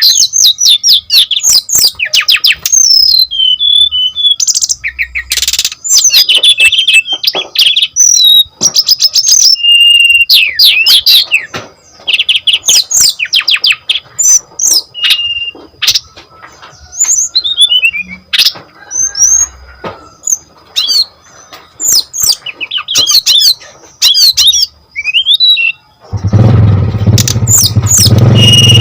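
Brown-chested jungle flycatcher singing fast, varied phrases of chirps, trills, sweeping notes and short clear whistles, broken by brief pauses. Near the end a loud low rumble comes in under the song.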